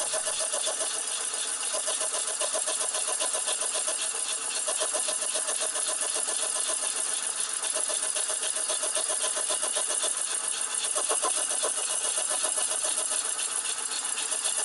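Lathe-driven slitting saw cutting lengthwise through a block of gunmetal, as the machinist believes it to be: a steady grinding hiss with a fast, fine chatter of the teeth biting the metal.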